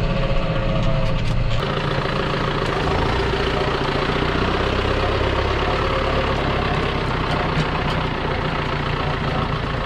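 John Deere tractor's diesel engine running steadily as it tows a small trailed sprayer; the engine sound changes character about a second and a half in.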